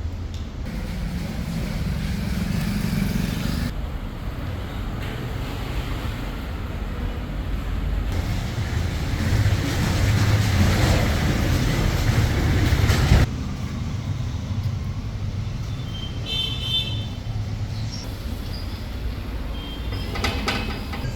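A 225 mm metal-cutting bandsaw running with a steady motor hum. It grows louder from about eight seconds in and drops suddenly about thirteen seconds in, with a few brief high squeaks a little later.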